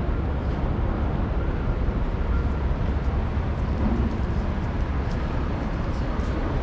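Steady city street ambience: a constant low rumble of traffic with faint scattered ticks and clatter on top.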